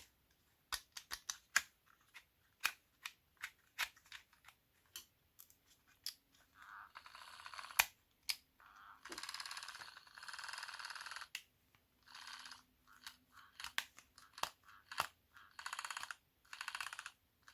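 Plastic clicks and rattles from a NUK electric breast pump being handled and its controls worked, the pump having stopped working. Several rasping bursts of noise, each about a second long, come in the second half.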